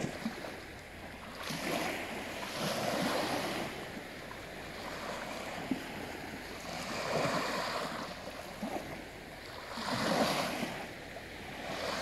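Small waves washing up onto a sandy beach, the surf hiss swelling and fading about every three to four seconds.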